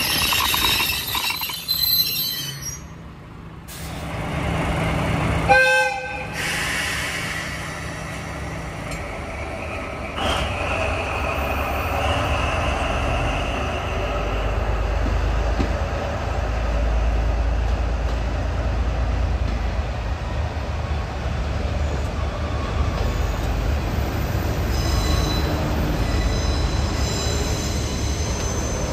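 Diesel-hauled freight train, the DD55 locomotive with loaded Koki flat wagons, moving along the track. The wheels squeal in the first couple of seconds and again near the end. The horn sounds briefly about six seconds in, over a steady low rumble from the locomotive.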